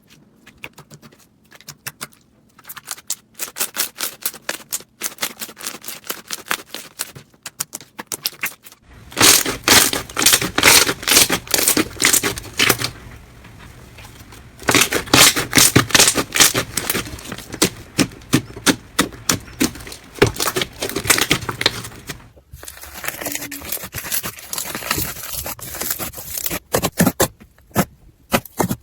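Slime being squeezed and pressed by hands: rapid clicking, crackling pops, louder from about a third of the way in.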